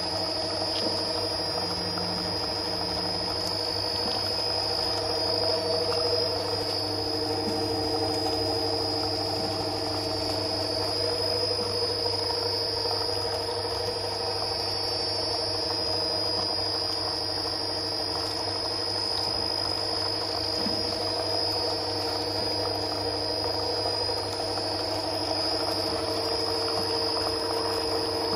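Dikmaksan DMS 2500 screw oil press running steadily under load while cold-pressing terebinth seeds. The motor and drive give a constant drone with a low hum and a steady high whine above it.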